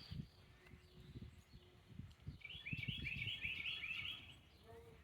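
A small bird singing a quick run of repeated chirping notes, several a second, for about two seconds in the middle, over faint low rustling and knocks.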